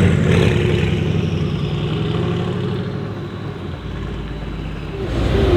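Straight-piped 4.0-litre twin-turbo V8 of a Mercedes-AMG GT R Pro running at low revs, fading over the first few seconds as the car moves away. Engine noise swells again near the end.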